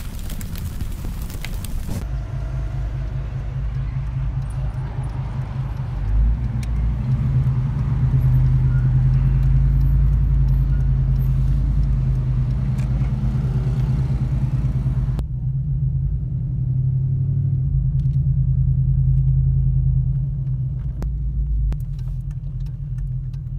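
Car engine and road noise heard from inside the cabin while driving, a steady low, pulsing drone that grows louder about six seconds in and eases off near the end as the car slows. It is preceded by a couple of seconds of an intro sound effect that cuts off abruptly.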